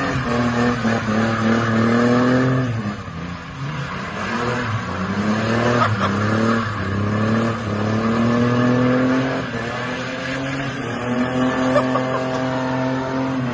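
Holden VN Commodore's 3.8-litre V6 revving hard through a burnout, the revs climbing and falling back about four times, over the steady screech of the rear tyres spinning on the road.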